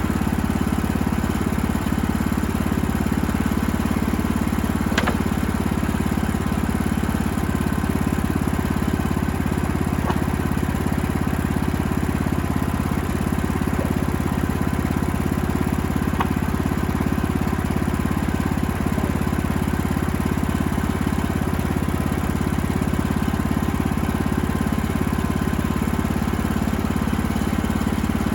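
Engine running steadily at one constant speed, with a few faint clicks over it.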